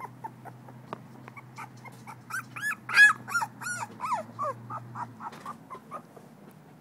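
Two-week-old American Pit Bull Terrier puppy whimpering in a run of short, high squeaks that rise and fall, loudest about three seconds in and thinning out toward the end.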